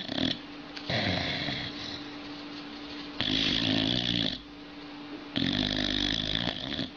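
Sleeping boxer dog snoring, with three loud snores about two seconds apart.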